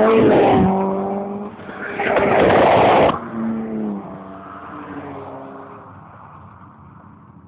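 A race car's engine revving hard as it goes by. About two seconds in comes a loud rushing burst of noise, such as tyre scrub, lasting about a second. The engine note then drops and fades away.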